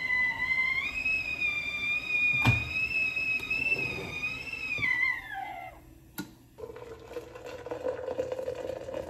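A red stovetop kettle whistling at the boil: a steady high whistle that steps up in pitch about a second in, then slides down in pitch and dies away about five seconds in as the kettle is lifted off the heat. A sharp click follows, then hot water pouring from the kettle into a French press.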